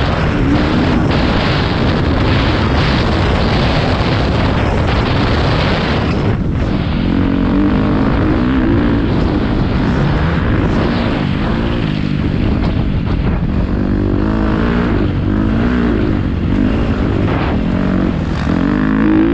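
Motocross bike engine at race pace, loud and continuous, its revs rising and falling again and again.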